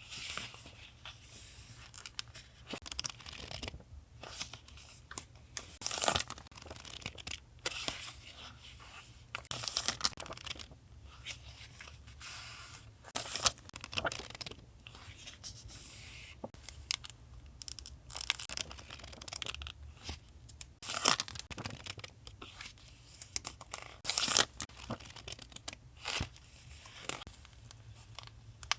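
Paper being handled, torn and crinkled by hand in irregular strokes, over a steady low hum.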